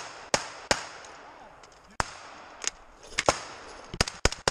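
Rifle fire: about ten single sharp shots, irregularly spaced, coming faster toward the end.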